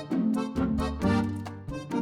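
Upbeat background music with a steady beat and bright plucked or struck notes.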